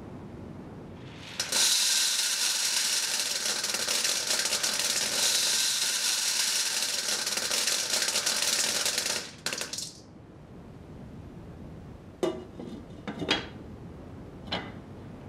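Unpopped popcorn kernels poured into a metal pot: a dense, hard rattle for about eight seconds that stops suddenly, followed by three separate clinks near the end.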